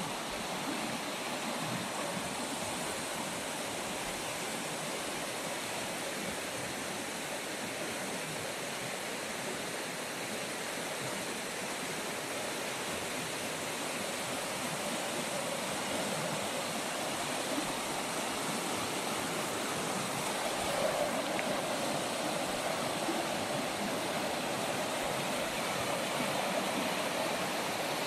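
Fast river water rushing and churning over a stony shallow rapid, a steady rushing noise.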